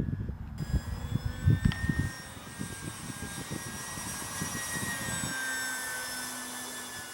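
Electric motor and propeller of a ParkZone Focke-Wulf 190A-8 RC warbird in flight: a steady high whine whose pitch drifts slightly. Wind buffets the microphone for the first two seconds.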